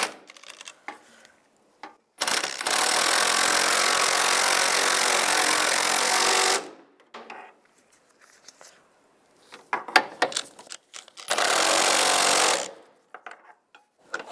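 Cordless impact wrench hammering engine mount bolts tight: one long run of about four seconds starting about two seconds in, then a shorter burst near the end, with a few small metallic clicks between them.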